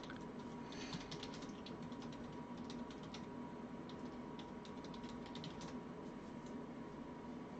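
Light, irregular clicks of typing on a computer keyboard, in short runs, over a steady electrical hum.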